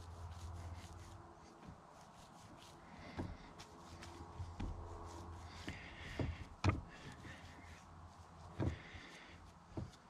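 Hands rolling and pressing minced meat into kebab sausages on a wooden chopping board, with a few scattered knocks against the wood. The sharpest knock comes about two-thirds of the way through.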